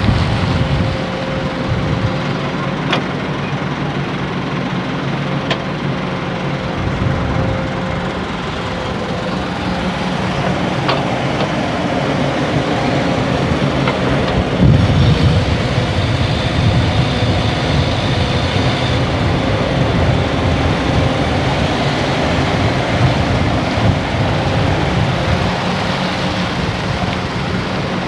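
Heavy diesel earthmoving machinery running steadily, growing louder about halfway through, with a few brief metallic ticks.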